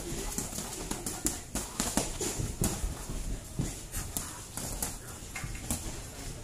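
Sparring boxers' gloves landing punches and feet shuffling on the ring canvas: an irregular, quick run of thuds and slaps.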